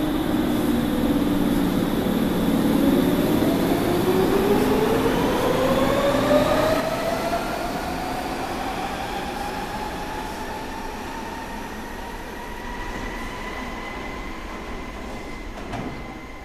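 Berlin U-Bahn Type G train pulling away, its drive whine rising steadily in pitch over several seconds as it accelerates, then levelling off while the train's sound slowly fades.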